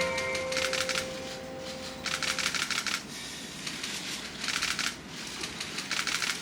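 Audience applauding in several uneven bursts of clapping, while the last piano note of the song dies away in the first couple of seconds.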